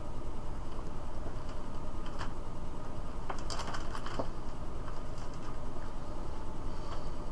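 Small parts and packaging being handled, giving a few light clicks and clinks, most of them in a cluster around the middle, over a steady background hiss.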